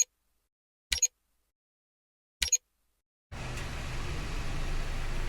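Silence broken by three short double clicks about a second apart. About three seconds in, steady outdoor noise with a low engine hum begins.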